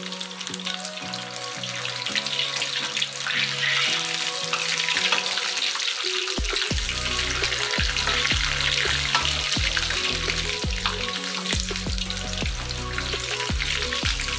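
Seasoned cassava pieces deep-frying in hot oil in a wok: a dense, crackling sizzle that grows louder over the first few seconds. Background music with a bass line comes in about six seconds in.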